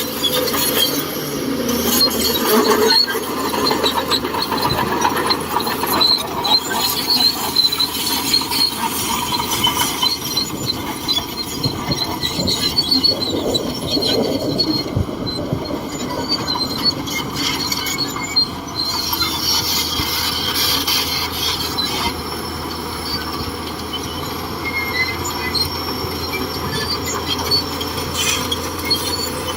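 Shantui DH17C2 crawler bulldozer working: its diesel engine runs steadily under the squeal of its steel tracks, with scattered clicks and knocks.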